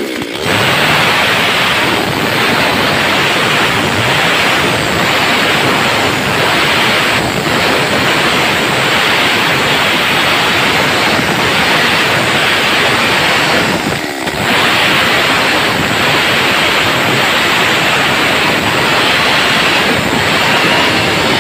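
Stihl MS 382 two-stroke chainsaw at full throttle ripping a wooden plank lengthwise, a loud, steady, harsh cutting noise. The throttle eases off briefly right at the start and again about 14 seconds in.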